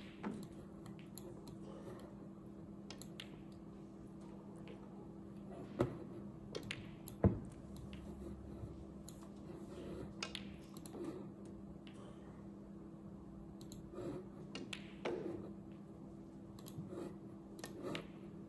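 Scattered sharp clicks and taps, with two louder knocks about six and seven seconds in, over a steady low hum.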